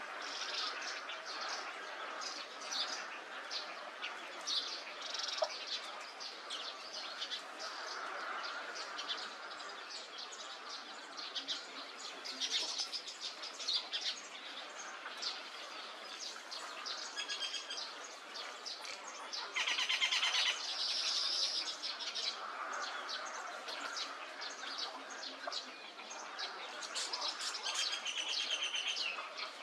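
Several wild birds calling together, a mix of short chirps and whistles overlapping one another. About two-thirds of the way through comes a fast, rattling trill.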